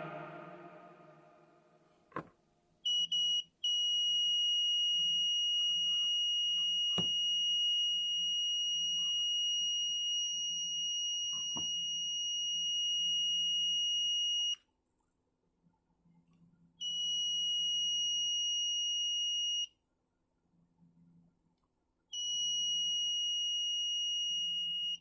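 Buzzer of a homemade proximity-sensor security alarm going off with a steady high-pitched tone. It gives two short beeps about three seconds in, then sounds for about eleven seconds, then twice more for about three seconds each, with a few faint clicks.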